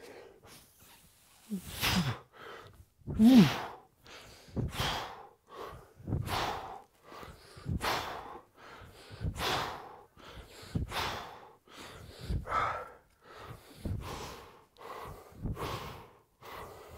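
A man's forceful breaths out in time with kettlebell swings, about one every second and a half, the first couple voiced as short grunts.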